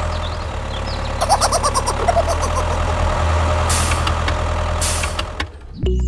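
Tractor engine idling steadily, with two short hisses of air about four and five seconds in. It cuts off suddenly just before the end, where music begins.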